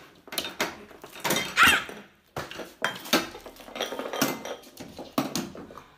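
Two cats fighting on a wooden floor, with food bowls and spilled kibble clattering and knocking under them. One short yowl rises and falls about a second and a half in.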